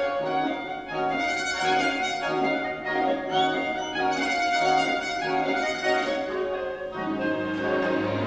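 Symphony orchestra playing a sustained passage of bowed strings and brass, with a low note pulsing about twice a second underneath.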